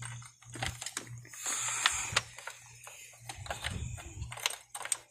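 Scattered clicks, taps and clatters of hand tools and metal engine parts being handled while disconnecting components on a truck engine, with a longer scraping, rustling stretch about a second and a half in.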